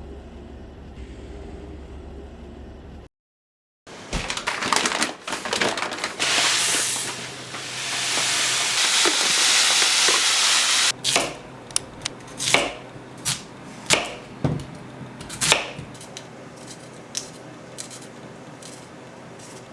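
Kitchen preparation sounds: quiet music stops, then clatter and a steady hiss lasting about four seconds, followed by a series of sharp, irregular knocks.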